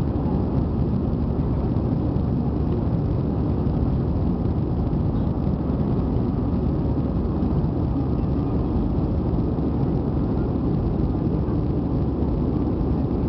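Cabin noise of an Airbus A320 climbing out after takeoff: the jet engines and rushing air make a steady, low-pitched noise, heard from inside the cabin beside the wing.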